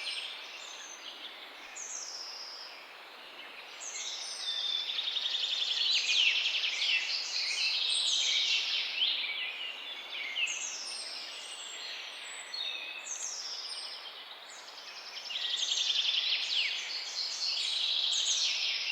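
Several songbirds chirping and singing at once in a morning chorus. Their calls overlap: short downward-sweeping chirps and quick trills over a faint steady background hiss. The chorus swells twice, about a quarter of the way in and again near the end.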